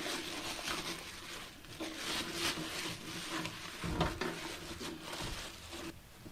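Plastic bag packaging rustling and crinkling as parts are handled, with a soft thump about four seconds in.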